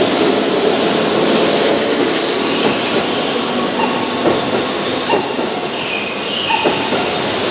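Keihan 2200 series electric train, set 2225, running past along a station platform. Its wheels click over the rail joints, with a faint high wheel squeal through the middle.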